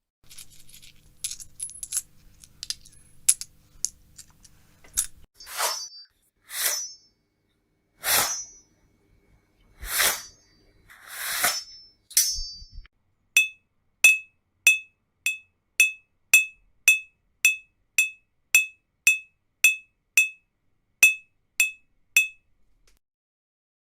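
A string of short sound effects: light scattered clicks and clinks over a faint hum, then six swishes, then a run of about twenty sharp clicks, evenly spaced about two a second, each with a ringing high tone.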